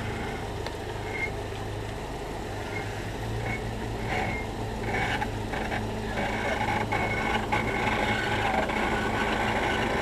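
Jeep Wrangler TJ's engine running steadily at low revs as it crawls down rock ledges.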